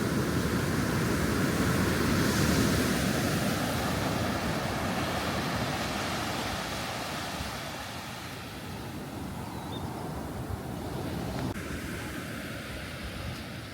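Ocean waves washing onto a beach: a louder surge of surf that eases off about halfway through into a quieter wash.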